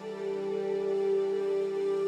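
Background music: a slow, soft new-age piece of held keyboard tones, the chord changing right at the start.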